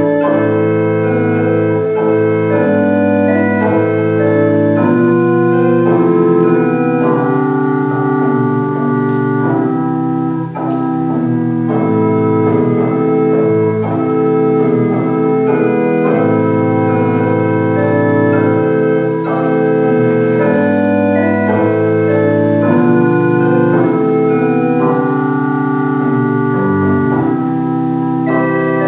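Organ playing a slow piece in sustained chords, the notes changing in steps over a held bass.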